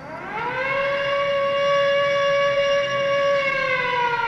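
Air-raid siren winding up to a steady wail within the first second, holding one pitch, then slowly falling in pitch near the end.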